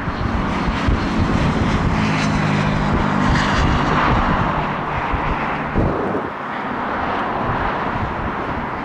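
Jet engines of an RAF Airbus A330 Voyager, twin Rolls-Royce Trent 700 turbofans, as a steady rushing drone as the airliner descends on approach with its gear down. A low hum under it fades about six seconds in, and wind buffets the microphone throughout.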